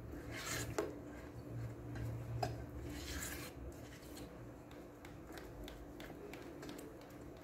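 Silicone spatula stirring thick melted chocolate ganache in an electric rice cooker's pot: soft scrapes and squishes with scattered light ticks against the pot, over a faint steady hum.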